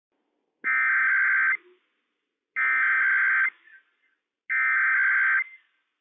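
Emergency Alert System SAME header broadcast over NOAA Weather Radio: three identical bursts of digital data tones, each just under a second long with about a second between them. This header opens a Required Weekly Test.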